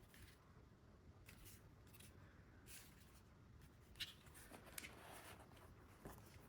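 Faint handling sounds, a few light clicks and rustles, in near silence.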